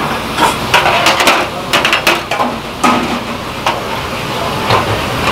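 Stainless-steel bowls, mesh strainers and a pot clinking and knocking against each other and the steel counter as noodles are handled: a quick string of sharp knocks in the first few seconds, over a steady background rush.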